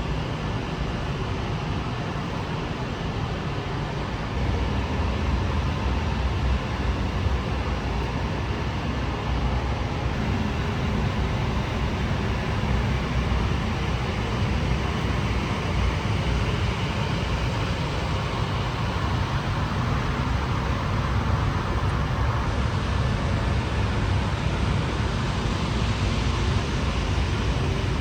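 Steady rushing, rumbling air noise of a paint spray booth's ventilation, a little louder from about four seconds in.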